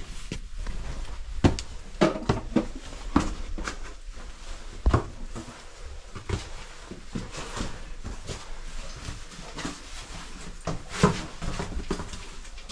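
Footsteps on rough, stony ground: irregular steps and scrapes with a few sharper knocks, over a steady low hum.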